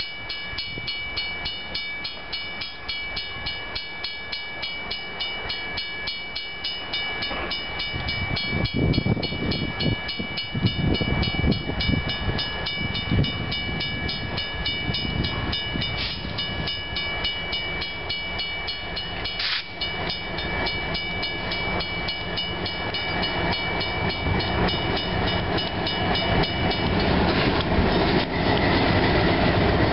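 A railway crossing bell ringing rapidly and steadily, stopping near the end, while two diesel locomotives running light approach. The locomotives' engines and wheels rumble louder from about a quarter of the way in and are loudest as they reach the crossing near the end.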